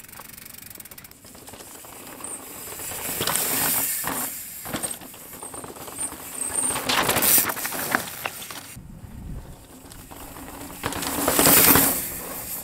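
Mountain bike tyres rolling and sliding over a loose, sandy dirt trail, the noise swelling and fading several times as the bike comes close to the microphone.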